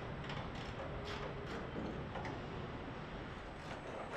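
Car assembly-line ambience: a steady mechanical hum with scattered light clicks and knocks from tools and fixtures.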